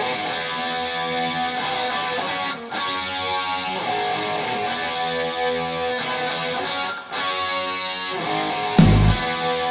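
Instrumental intro of an 1980s-style melodic hard rock song: electric guitar chords ringing steadily, with brief breaks about two and a half and seven seconds in. Near the end, heavy low hits come in as the band joins.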